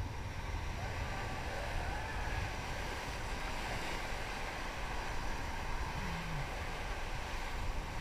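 Steady rush of river rapids around a paddled raft, with wind buffeting the microphone.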